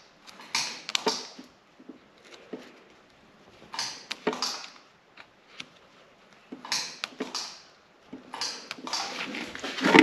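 Handheld battery-powered 8000 W spot welder tacking 0.1 mm stainless steel heat-shield foil onto an exhaust pipe. There are four bursts of crinkling foil with sharp snaps, one every two to three seconds.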